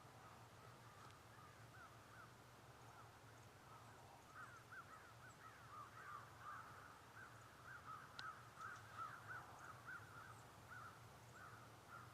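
Faint, distant chorus of short, repeated animal calls: many quick arched cries, overlapping, that thicken about four seconds in and thin out near the end.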